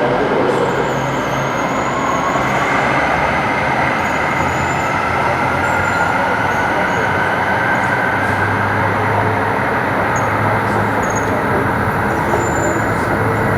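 Los Angeles Metro light-rail train in an underground station, its motor whine rising in pitch over the first few seconds as it gets under way, then a steady loud rumble.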